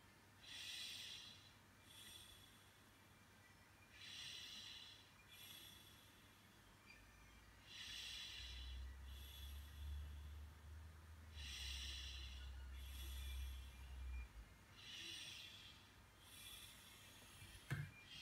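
Soft breathing close to the microphone, in-and-out breaths in an even rhythm of about one breath every 3.5 to 4 seconds. A low hum comes in for a few seconds midway, and there is a single short click near the end.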